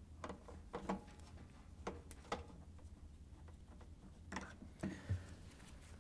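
Faint, scattered clicks and scrapes of a Phillips screwdriver turning the tensioning screw of a washer door-bellow clamp to loosen it.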